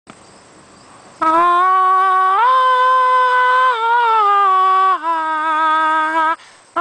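A person humming a tune in long, steady held notes, starting about a second in, stepping up and back down in pitch, and breaking off just before the end.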